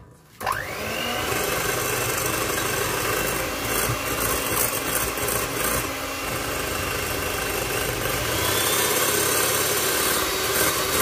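Electric hand mixer switched on, its motor whining up to speed about half a second in, then running steadily as the twin beaters whisk egg-and-sugar batter in a glass bowl while oil is drizzled in.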